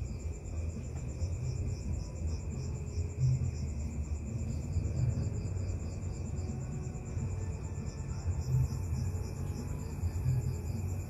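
Night insects such as crickets trilling steadily: a continuous high, rapidly pulsing trill with a lower steady buzz beneath it. An uneven low rumble runs underneath throughout.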